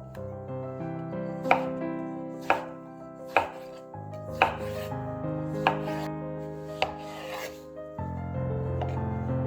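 A knife cutting through food onto a cutting board, about one sharp cut a second, over background piano music.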